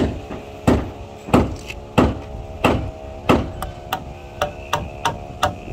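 Claw hammer driving nails into timber: about six heavy blows roughly two-thirds of a second apart, then a quicker run of lighter taps in the second half.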